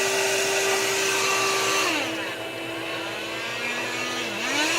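Dual blower fans of a wood-burning fireplace insert running, switched on by their thermostat. The hum and rush of air drop about two seconds in, then the fan pitch slides down and back up as the speed control is turned.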